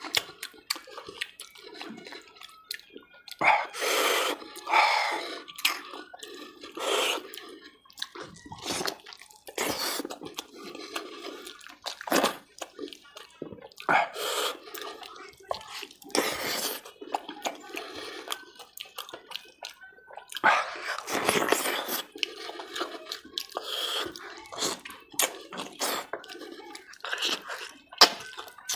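A person eating mutton curry by hand close to the microphone: wet chewing and slurping in irregular bursts, with small clicks and smacks.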